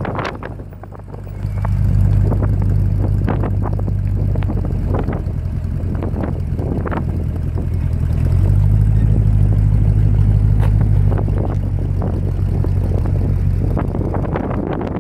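1964 Lincoln Continental's 430 cubic-inch V8 idling, a steady low exhaust rumble. It grows louder about a second and a half in, and louder still for a few seconds past the middle.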